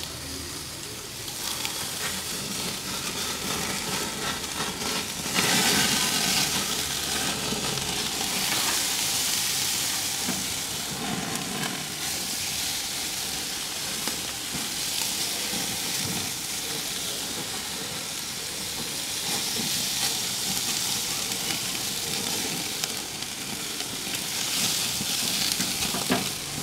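Marinated chicken sizzling on a charcoal barbecue grill, a steady hiss that gets louder about five seconds in.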